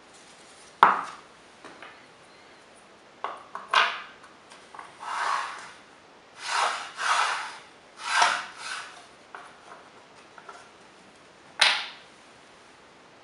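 MDF and plywood jig pieces knocked and slid on an MDF workbench: a sharp wooden knock about a second in, several scraping slides of board over board in the middle, and another knock near the end.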